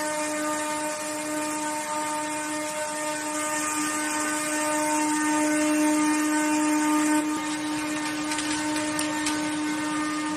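Corrugated cardboard production line machinery running: a steady whine held at one constant pitch over continuous mechanical noise. The upper noise shifts slightly about seven seconds in.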